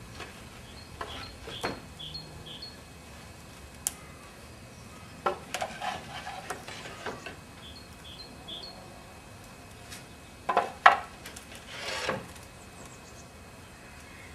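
Irregular wooden knocks, clatter and scraping from demolition work on a rickety outhouse, with the loudest knock about eleven seconds in.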